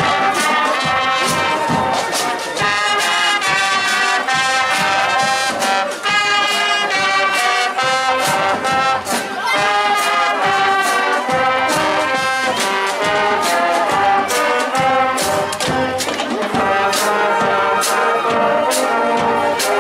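High school marching band playing as it marches past, trumpets and trombones carrying the tune over regular sharp strikes that keep the beat.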